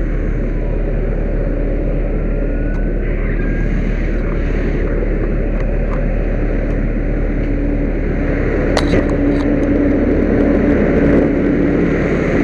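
A fire engine running, a loud, steady rumble with a constant hum. There is one sharp click about nine seconds in.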